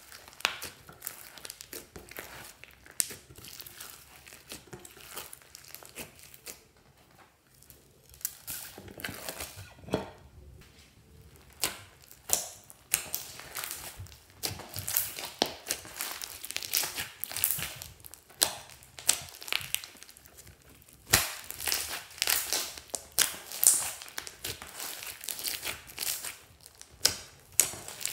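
Hands squeezing and kneading a big fluffy slime mixed with foam beads and sprinkles: a long run of irregular sticky crackles and pops, with a quieter stretch about a third of the way in.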